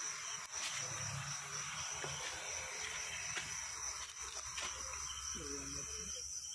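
Crickets chirping in a steady, high, pulsing chorus.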